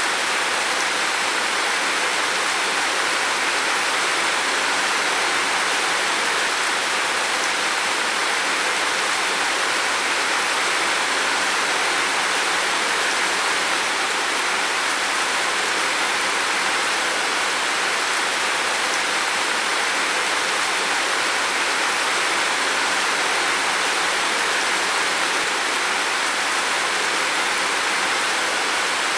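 Heavy rain falling on a roof, a dense, steady hiss that does not let up.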